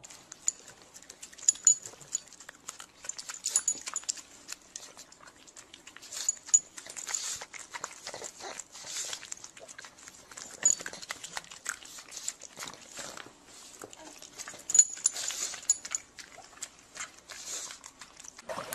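A pug snuffling and sniffing right up against the microphone: irregular short, sharp noisy bursts and clicks.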